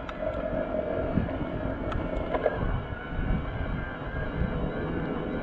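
Orbea Wild FS M20 e-mountain bike's mid-drive motor whining steadily under heavy load in turbo assist on a steep climb, over a low rumble. A few light clicks come about two seconds in.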